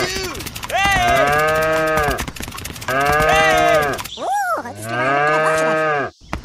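Cows mooing: three long, level moos about a second and a half apart, with a short, higher call between the last two.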